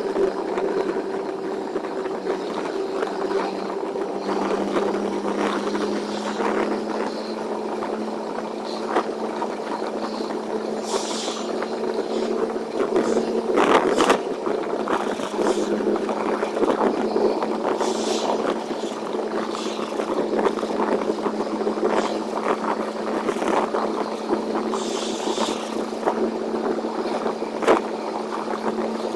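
Tractor-trailer truck engine droning steadily on the highway, its pitch stepping up slightly about four seconds in, with constant small rattles and a few short hissing swishes.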